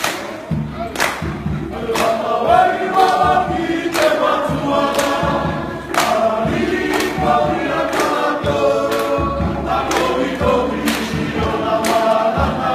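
A group of men singing together in chorus, with sharp beats keeping time about once a second.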